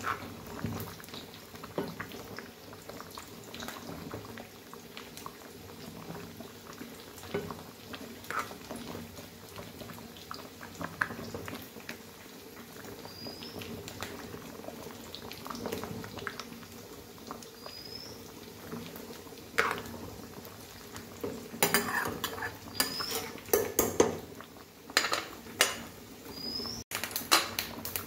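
Thick vegetable curry bubbling in a steel pot, with a steady fizz and small pops, while a steel ladle stirs it and clinks against the pot. The clinks come thick and sharp over the last several seconds.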